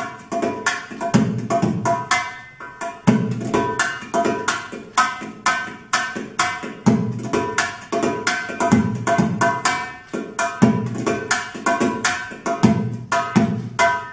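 Bellydance music driven by a fast hand-drum rhythm. Quick sharp strokes are punctuated by deep bass strokes about once a second, with a few steady held tones underneath.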